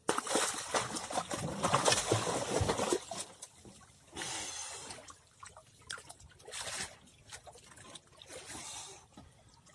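Splashing water as a hooked skipjack tuna is hauled up to the side of the boat on a handline. A dense burst of splashing starts suddenly and lasts about three seconds, followed by lighter, broken splashes.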